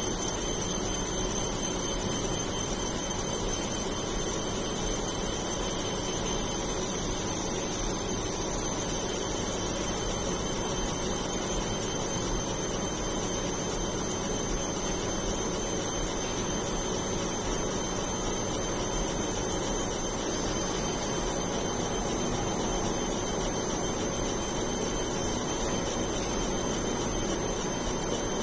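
UV laser marking machine running steadily while it marks glass: an even mechanical whir with a few thin, high, steady whines over it.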